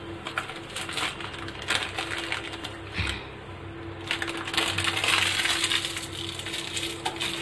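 A steel tablespoon clinking and tapping against a glass bowl as dry mango powder is spooned in: a scatter of sharp metallic clicks, with a rustling stretch around five seconds in.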